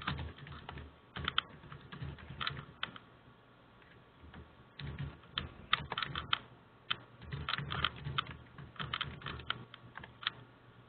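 Typing on a computer keyboard: quick runs of keystroke clicks, with a pause of about a second and a half a few seconds in, stopping shortly before the end.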